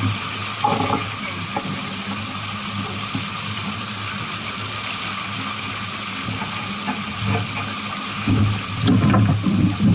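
Water rushing and splashing steadily along a moving boat's hull under a steady low hum, with a few heavier low thumps near the end.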